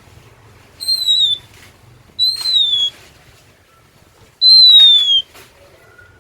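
Oriental magpie-robin (kacer) singing: three loud, drawn-out whistles, each sliding slightly down in pitch, spaced about a second and a half apart, with a few faint short notes near the end.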